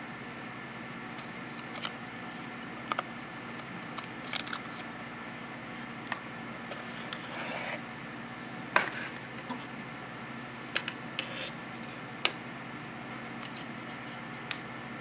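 Handling of watch packaging: papery, plastic rustles and scattered light clicks and taps, about a dozen, with one louder click near the middle, over a steady low hiss.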